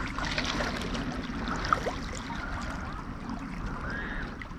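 Small waves lapping and trickling against shoreline rocks: a steady soft wash of water with light clicks and splashes.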